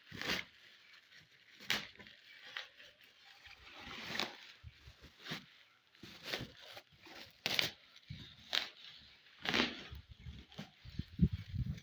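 Irregular rustling, scraping and tearing noises with a few dull knocks, about one every half second to second: packaging being handled and opened.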